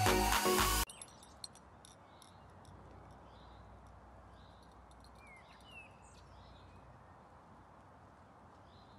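Electronic music with a steady beat cuts off suddenly about a second in. It gives way to quiet outdoor background with small birds chirping faintly here and there, including a few quick pitch slides about midway.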